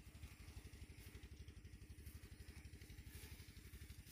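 Faint engine idling, a fast, even low chug.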